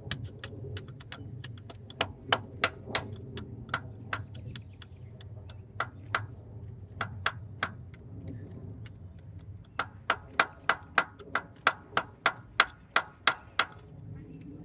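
Hammer tapping a metal punch against a carburetor mixture-screw cap to dent it, giving sharp, ringing metal-on-metal taps. The taps come in scattered groups, then in a quick run of about three a second near the end.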